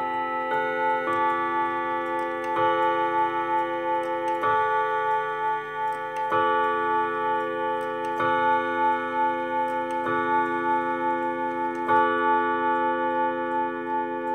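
Junghans mantel clock striking on its steel chime rods: single hammer blows about every two seconds, each note ringing on over the last, as when the clock counts out the hour. The movement ticks quietly underneath.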